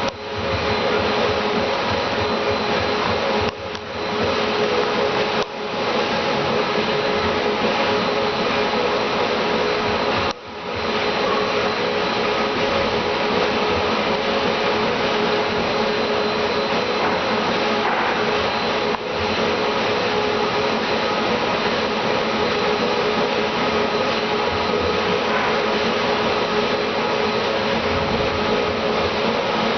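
A steady mechanical whir with a strong hiss, cutting out briefly several times and picking straight back up.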